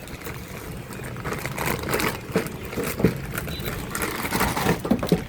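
Irregular clicks, ticks and rustling of cables and small parts being handled and fitted by hand, with a few sharper ticks a little past the middle and near the end.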